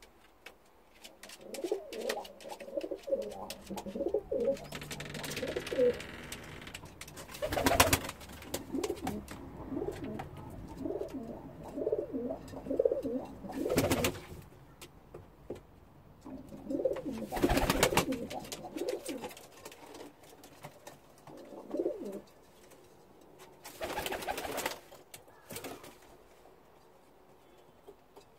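Domestic pigeons cooing in a small wooden loft, one rolling coo phrase after another, easing off near the end. Several short, loud rustling bursts break in between the coos.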